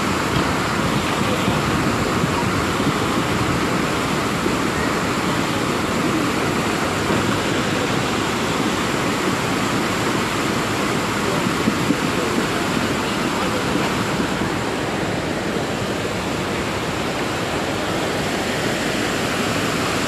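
A muddy river in flood rushing past in a steady, loud torrent of churning water.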